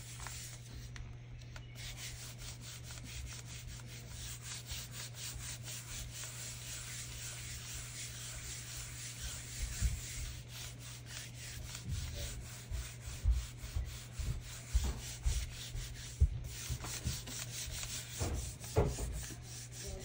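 Hands rubbing and burnishing a sheet of paper pressed onto a gel printing plate, a fast papery swishing of many short strokes, to lift the paint into a print. Soft low knocks join in the second half.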